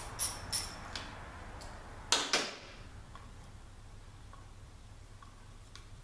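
Ratchet wrench clicking in quick strokes as the 7 mm bolt holding the pass-through connector is backed out of a Mercedes 722.6 transmission case, then a single louder clunk a little after two seconds in, followed by a few faint ticks.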